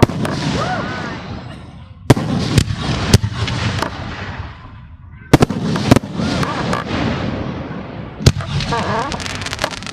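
Aerial fireworks shells going off in a display: several sharp booms, a cluster about two seconds in, more a little past halfway and one past eight seconds, with continuous crackling and rumbling between.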